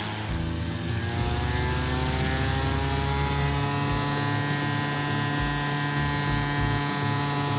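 A large engine revving up, its pitch rising over the first three seconds or so and then running steadily at high speed.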